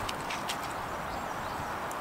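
Stream water running steadily, with a faint tick or two about a quarter of the way in.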